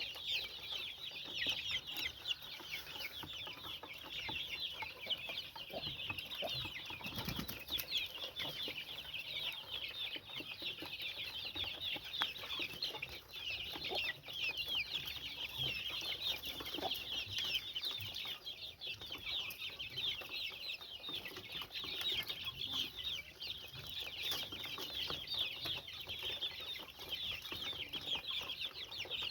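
A large group of chicks peeping without pause, a dense chorus of many overlapping high-pitched chirps.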